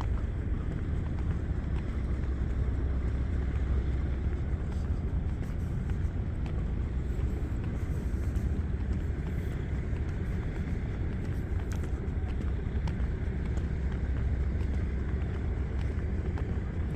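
Steady low rumble of distant city and river traffic at night, with no single event standing out.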